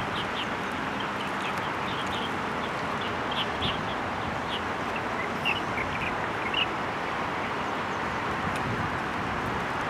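Steady outdoor background noise from the river bank, with many short, high bird chirps scattered through it.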